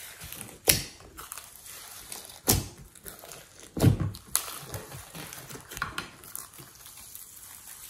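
Hands squishing and kneading thick slime mixed with foam beads and glitter in a glass dish: a steady wet crackle with sharp pops, one about a second in, one near two and a half seconds and a cluster around four seconds.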